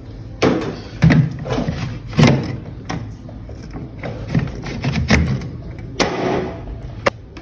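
A series of irregular knocks and clatters of household objects being handled and set down, with some rustling between them.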